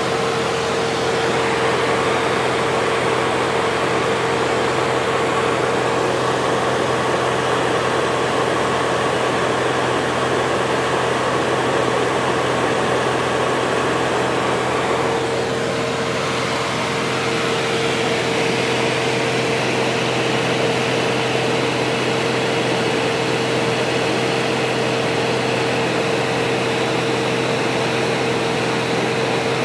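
Cessna 177RG Cardinal's four-cylinder Lycoming engine and propeller running steadily in cruise, heard from inside the cabin as a loud, constant drone. Its tone shifts slightly about halfway through.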